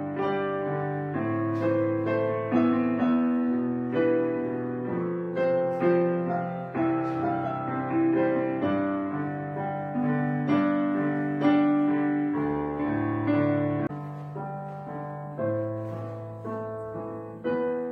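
Background music: a slow, gentle piano piece, single notes and chords struck one or two a second and left to ring.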